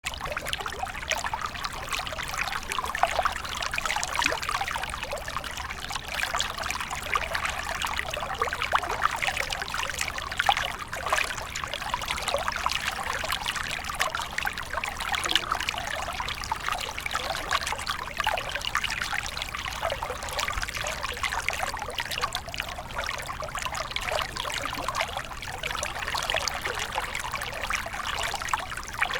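Flowing water trickling steadily, a dense, even patter of small splashes and bubbles with no pauses.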